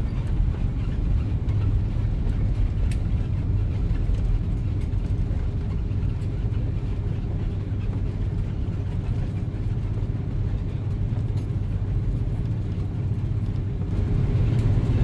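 Airbus A330-300 cabin noise: a steady low rumble of engines and airflow with a faint steady hum, growing a little louder near the end.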